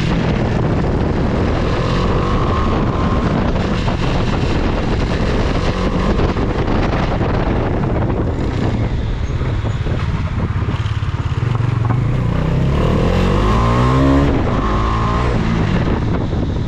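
Bajaj Dominar 400's single-cylinder engine running under way, heard from the rider's seat. About twelve seconds in, the revs climb steadily, then drop suddenly at a gear change.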